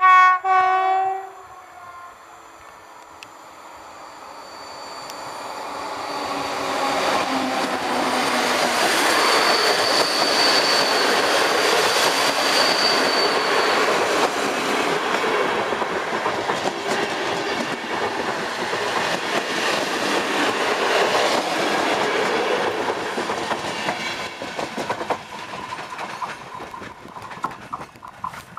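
EP09 electric locomotive sounding its two low-toned horns in two short blasts, the first at a lower pitch and the second higher. The locomotive and its passenger coaches then pass, a rush of wheels on rail that swells, holds and fades, with rhythmic clicks over rail joints near the end.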